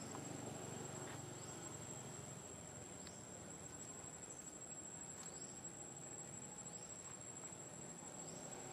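Faint outdoor insect chorus: one steady high-pitched drone, with a few faint short rising chirps over it.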